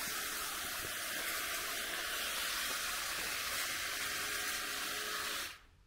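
A steady, loud hiss that cuts off suddenly near the end.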